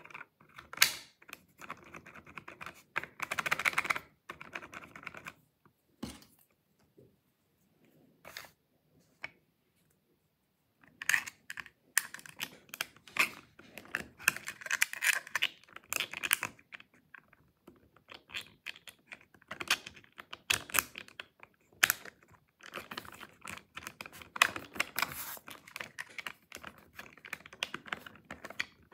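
Quick clicking and rattling of 3D-printed plastic lock parts being handled and fitted, with a plastic key worked in its keyhole. The clicking drops to a few single clicks for several seconds about a fifth of the way in, then picks up again.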